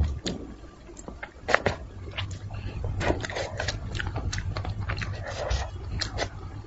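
A person chewing and sucking on spicy braised fish close to the microphone, with irregular wet smacking and clicking mouth sounds. A low steady hum comes in about two seconds in.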